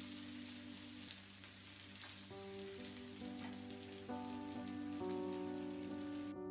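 Dumplings (Korean mandu) frying in oil in a nonstick pan: a steady, crackling sizzle that cuts off suddenly at the very end, with soft background music underneath.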